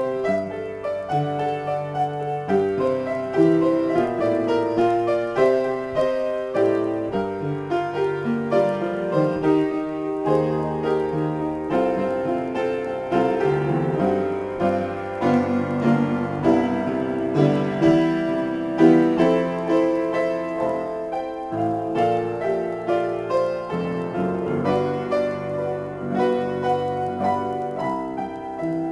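Upright piano played as a free improvisation: a steady flow of struck chords and note runs with both hands.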